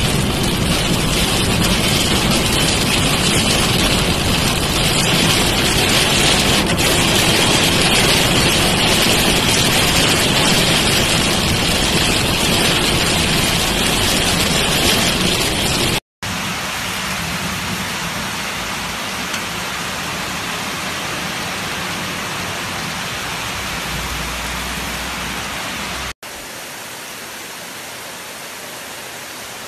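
Heavy rain as a steady, loud rushing noise, first heard from inside a moving car with rain on the windscreen and road noise. It cuts abruptly about halfway through and again near the end to quieter, steady rain noise.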